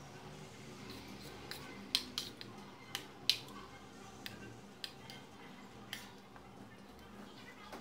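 Metal spoon clinking and scraping against a ceramic plate while scooping rice: about a dozen irregular sharp clicks.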